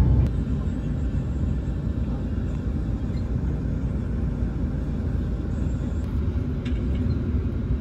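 Steady low rumble of a bus's engine and road noise, heard from inside the cabin of the moving bus.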